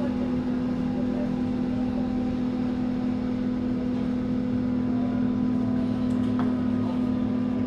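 AEG/MAN/Siemens DT1 three-phase U-Bahn train standing still, its onboard electrical equipment giving a steady low hum with fainter higher whining tones above it.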